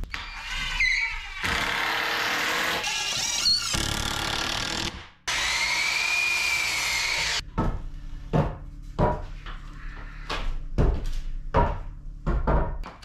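Power tools cutting lumber: a power tool runs for a few seconds, then a miter saw cuts through a board for about two seconds with a whine that rises and falls. After that come a series of wooden knocks as boards are set down and fitted into a frame.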